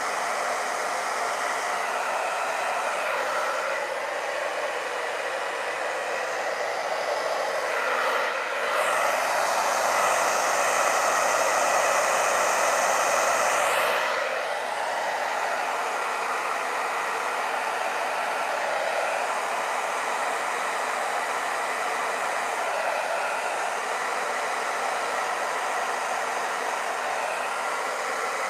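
Handheld hair dryer running steadily, blowing on wet pour paint, with a constant rushing hiss. It gets louder and brighter for about five seconds in the middle, then drops back.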